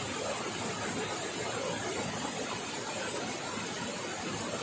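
Steady rushing of water from a waterfall and the stream flowing below it, an even, unbroken noise.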